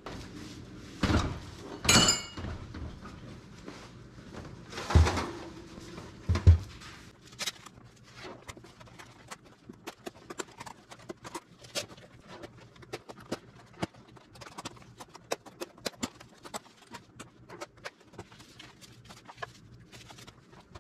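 Freshly oven-heated Head Edge LYT plastic ski boots thudding four times as the feet are worked into the shells. Then comes a long run of quick small clicks as the boot buckles are fastened.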